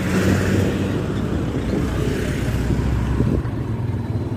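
Motorcycle engine running steadily, with wind rushing over the microphone of a moving motorbike.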